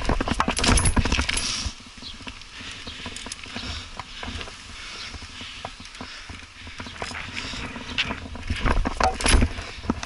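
A BMX bike being ridden, heard through a helmet-mounted camera: a stream of rattles, knocks and clatter from the bike. Louder bursts of thumping and clatter come in the first two seconds and again about eight to nine seconds in.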